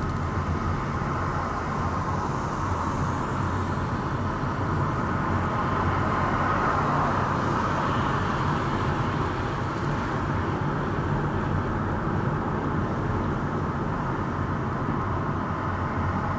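Steady road and tyre noise of a car driving along city streets, with the engine low underneath, heard from inside the cabin. It swells slightly about halfway through, then settles.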